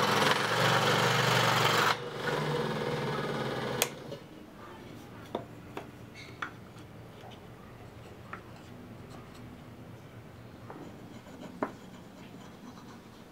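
A handheld power tool running under load, cut off about two seconds in and running down until a sharp click near four seconds; after that only scattered light clicks and taps of workshop handling.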